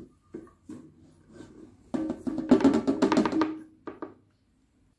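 A short burst of music with percussion, about two seconds in and lasting a second and a half, after a few light knocks.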